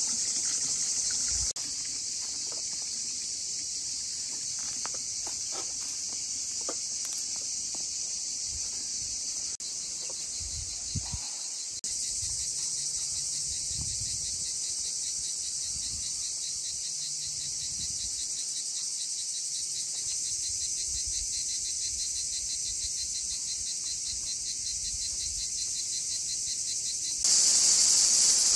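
Steady, high-pitched chorus of summer insects, jumping louder near the end. Faint low footfalls on a dirt path come through underneath.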